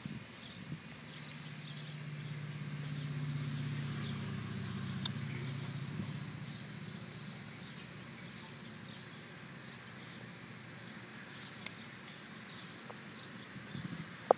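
Low engine hum of a passing motor swells for a few seconds and fades, over quiet outdoor background noise with faint ticks; a single sharp knock sounds near the end.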